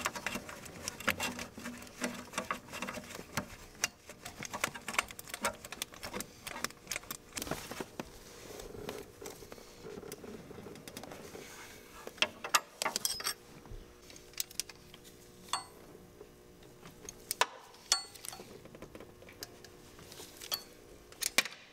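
Hand tools working metal on an engine: quick clicking for the first several seconds, then scattered metallic clicks and clinks, as the timing belt idler pulley is bolted on.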